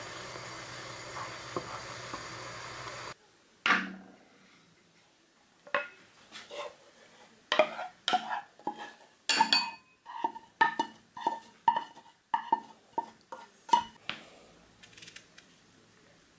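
A spoon scraping and knocking against a small metal saucepan as thick oat porridge is scraped out into a ceramic bowl: about a dozen sharp, ringing clinks and scrapes in quick succession. Before that, a steady hum for about the first three seconds stops abruptly.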